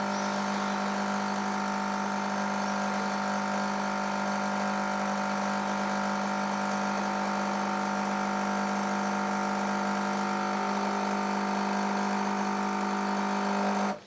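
Nescafé Dolce Gusto Jovia capsule coffee machine's pump running with a steady hum as it pushes hot water through the coffee pod, then cutting off abruptly at the end.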